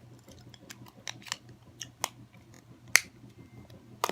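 Unicorn putty being pressed and squished into its container by hand, giving a string of irregular sticky clicks and pops, the sharpest a little before three seconds in and another near the end.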